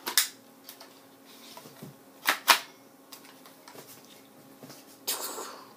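Sharp clicks and clacks from a toy LMG-style BB gun being handled, with a pair of louder clacks about two seconds in and a brief scrape near the end.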